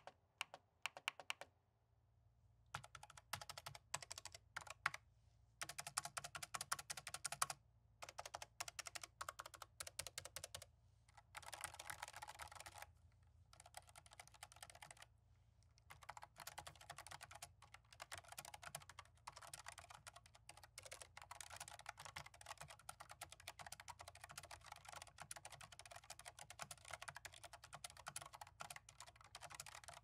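Typing on a Razer Deathstalker V2 Pro keyboard with low-profile red linear optical switches. A few single keystrokes come first, then fast continuous typing from about three seconds in, with brief pauses. The keystrokes are quiet and soft when the keys bottom out, because silicone dampening pads sit inside the switches.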